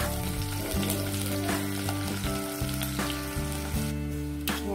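Potato wedges sizzling as they fry in hot oil in a pan, with a few sharp clicks of a spatula against the pan.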